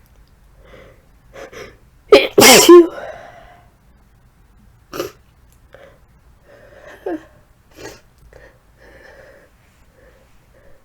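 One strong sneeze from a woman sick with the flu, about two seconds in, a sharp intake-like onset running straight into a loud voiced burst. A few short, much quieter sounds follow.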